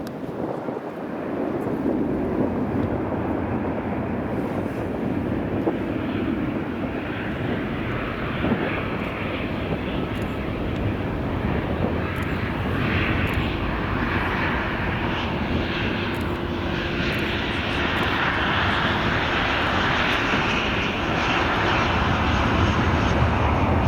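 Jet airliner engine noise: a steady rush that grows gradually louder, with more high hiss coming in over the second half.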